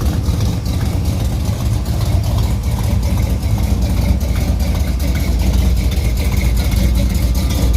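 1975 Chevy K5 Blazer's engine idling through its new 3-inch aluminized exhaust with stainless tips: a steady, deep exhaust rumble.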